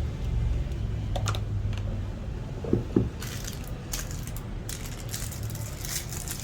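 Small metal parts and tools being handled during a grinder repair: scattered light clicks and clinks, with two sharper clicks about three seconds in, over a low steady rumble.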